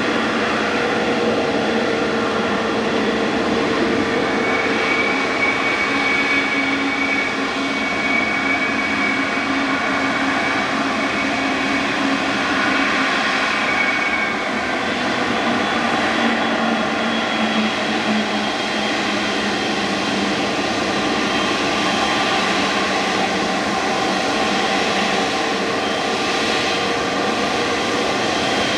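Jet airliner engines running: a steady rushing noise with faint whining tones that slowly drift in pitch.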